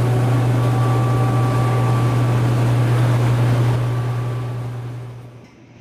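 Maytag commercial laundry machines running: a steady low hum with a rushing whir over it, fading down near the end.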